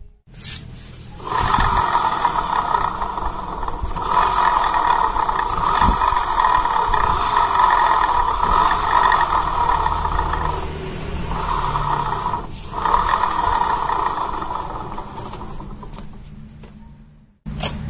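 Honda Vario 150 scooter running with a rough, snoring growl ('ngorok') from its CVT, which the mechanic puts down to a worn rear pulley or a worn rear pulley bearing. The noise breaks off briefly twice and fades out near the end.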